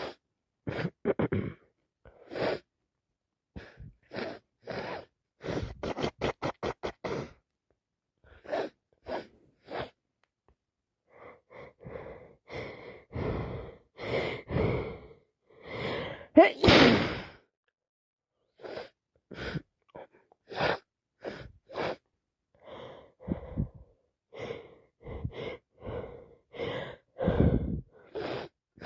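A woman with a heavy head cold sneezing again and again, wet and messy, with sharp gasping in-breaths before the sneezes. There is a quick run of short bursts about six seconds in, and the loudest sneeze comes just after sixteen seconds.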